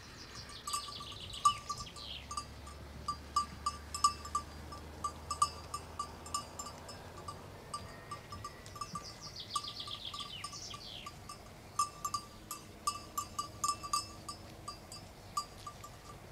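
Cowbells clanking irregularly, with a songbird twice singing a descending trilled phrase about a second and a half long.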